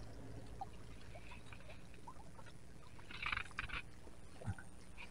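Quiet handling sounds as rubber-gloved hands pull in a wet magnet-fishing rope: faint scattered ticks, a short scratchy rustle about three seconds in, and a soft thump near the end.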